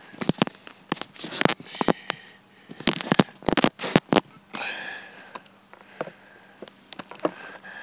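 A Disney Infinity figure's plastic and cardboard packaging being handled and pulled open: a string of sharp crackles and clicks with quieter gaps between.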